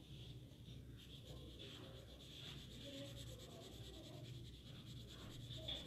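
Felt-tip sketch pen scribbling quickly back and forth on drawing paper, colouring in an area with rapid, faint strokes.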